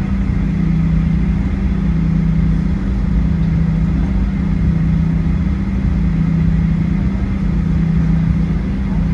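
Cabin noise inside a Boeing 737-800: the CFM56-7B turbofan engines and airflow make a steady low drone.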